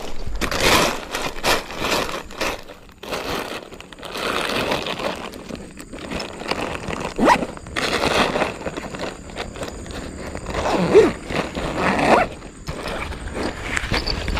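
Irregular rustling and scraping as a backpack and a plastic bag are handled and packed, close to the microphone.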